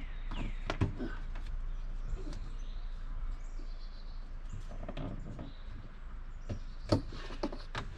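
A few sharp clicks and knocks of handling, one at the start, one about a second in and two near the end, over a steady low hum.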